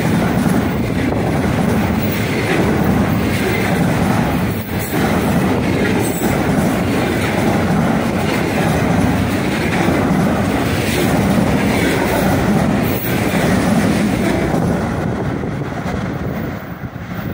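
Loaded container wagons of a long, heavy freight train rolling past at speed close by: a steady, loud rumble of wheels on rail with occasional sharp knocks. The sound fades near the end as the last wagon goes by.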